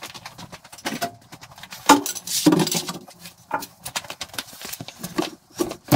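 Steel axle stand being set in place and adjusted under a car's rear subframe: a series of metal clanks and clinks, with louder ringing knocks about two seconds in.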